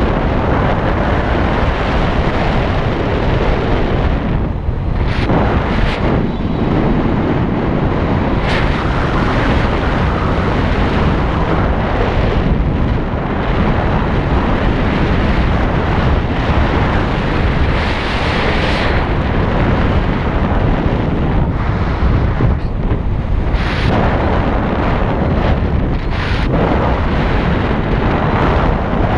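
Loud, steady wind rushing over the microphone, as from riding a motorcycle at speed.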